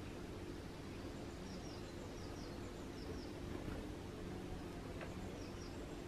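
Outdoor garden ambience: a steady low background hum, with a distant small bird calling short, high double chirps over and over, about one pair every half second to second.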